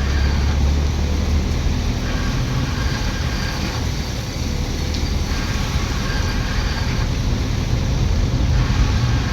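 A motor vehicle driving, its engine and road noise making a steady low rumble that shifts in pitch a few times.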